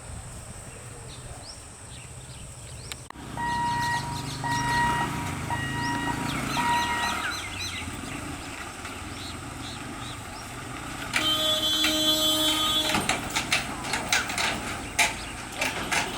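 Traffic noise at a busy road-rail level crossing. A steady beeping, pulsing about twice a second, runs for about four seconds. Later a horn sounds for about two seconds, followed by a run of sharp clicks and knocks.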